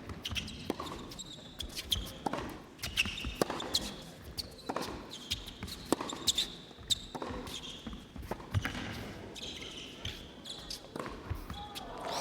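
Tennis rally: a ball struck by rackets and bouncing on the court, a sharp pop roughly every second, over a low background.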